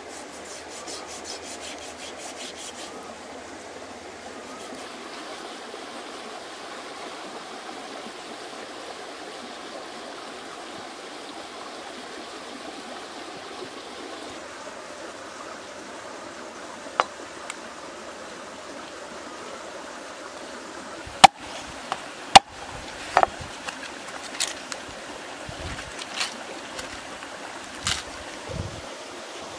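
Steady rushing background noise, with two loud sharp knocks about two-thirds of the way in, then smaller snaps and rustles of fresh corn ears being husked near the end.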